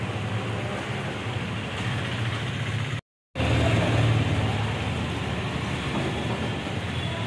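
Steady motor hum with hiss, breaking off for a moment about three seconds in.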